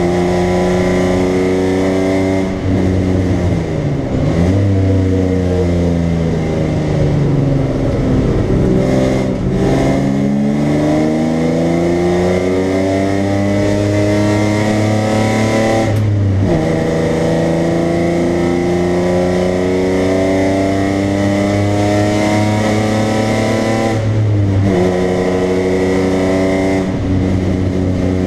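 BMW 325i's straight-six engine, heard from inside the cabin while it is driven hard on track. The revs repeatedly climb and fall through the corners, with sudden drops in pitch at gear changes about halfway through and again near the end.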